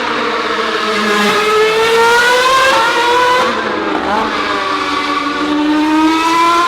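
Nissan R35 GT-R's twin-turbo V6 accelerating hard, its pitch rising steadily. About three and a half seconds in it drops briefly, as at a gear change, then climbs again.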